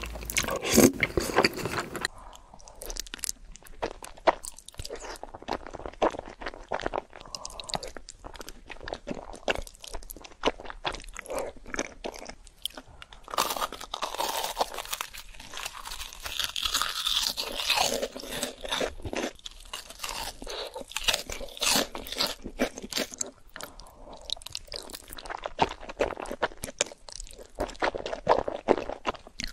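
Close-miked eating: crunching bites into breadcrumb-coated fried food and steady chewing, with many small wet mouth clicks. The sound changes character about two seconds in.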